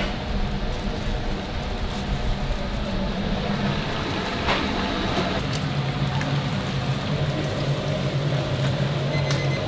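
Steady kitchen background of hiss and low machine hum, the hum growing stronger about halfway through, with a few light clicks; a faint electronic beeping starts at the very end.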